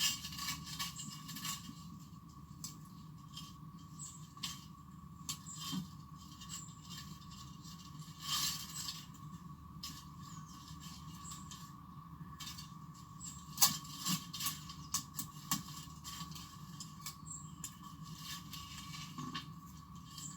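Small clicks, taps and light scraping from handling a smartphone while a screen protector is fitted, with one sharper click about two-thirds of the way through. A steady faint hum runs underneath.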